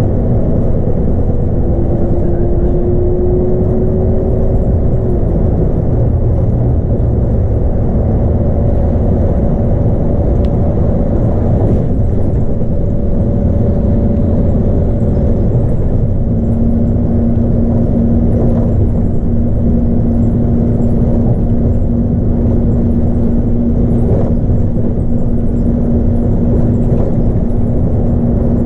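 Scania K310UB bus's 8.9-litre five-cylinder DC9 diesel and ZF Ecomat automatic driveline running at steady cruise, heard from inside the front of the bus: a constant low rumble of engine and road noise with faint steady whines on top.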